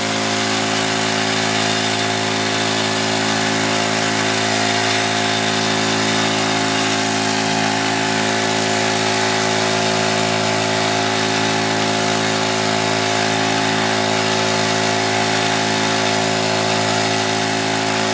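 The small engine of a floating suction dredge running at a steady, unchanging speed, driving the dredge's water pump.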